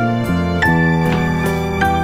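Soft instrumental background music: a melody of held notes that change every half second or so.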